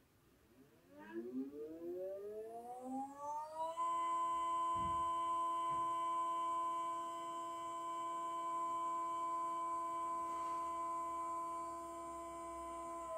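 Stepper motors of a friction-drive telescope mount slewing. The whine rises in pitch for about three seconds as the motors speed up, then holds as a steady tone with several overtones, and starts to fall at the very end as the mount slows.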